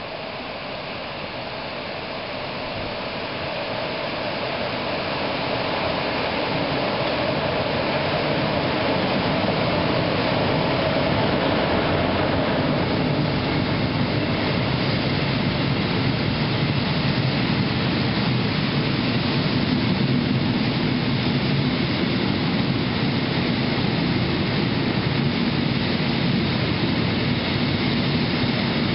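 A freight train behind a DB class 155 electric locomotive running through a station: the locomotive approaches and passes, then a long string of hopper wagons rolls by close at hand. The rolling noise of wheels on rails grows louder over the first several seconds, then holds steady as the wagons keep passing.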